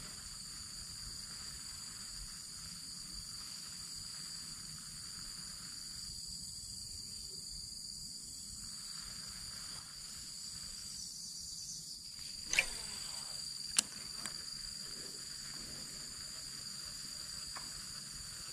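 Steady, high-pitched insect chorus, several continuous tones held throughout. Two short sharp sounds break in a little past the middle, about a second apart.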